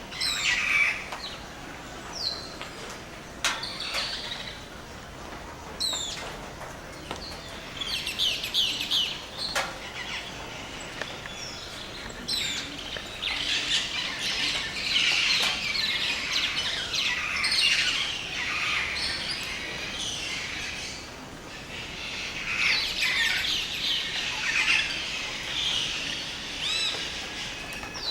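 Dawn chorus in a tropical rainforest: many birds chirping and trilling at once, thickening for long stretches and thinning in between, with a few sharp clicks or knocks.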